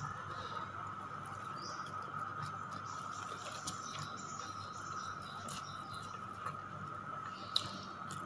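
Quiet eating by hand: chewing, and fingers picking at rice and fried food on a paper wrapper, giving scattered small clicks and crinkles, with one sharper click near the end. A faint steady whine runs underneath.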